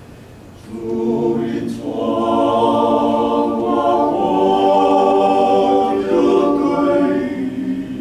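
Male vocal ensemble singing a Taiwanese hymn a cappella in harmony: a soft phrase that swells loud about a second in, long held chords, then easing off near the end.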